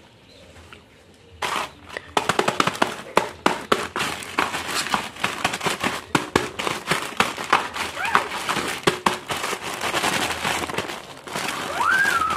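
Plastic poly mailer bag crinkling and crackling as it is handled and torn open by hand, starting about a second and a half in.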